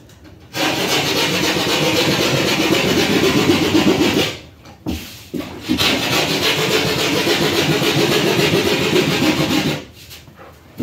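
Handheld power tool running in two stretches of about four seconds each, with a short break about four seconds in, with a rasping, grinding edge as it works into the material.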